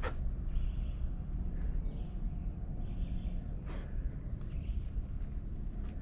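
Scattered short bird calls over a steady low rumble, with a couple of sharp clicks, one at the start and one a little before four seconds in.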